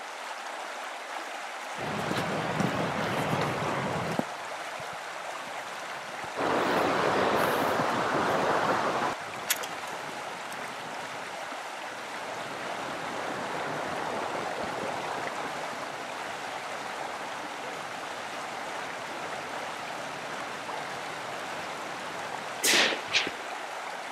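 A river flowing over stones: a steady rush of water that swells louder for a few seconds twice in the first nine seconds. A brief sharp noise stands out near the end.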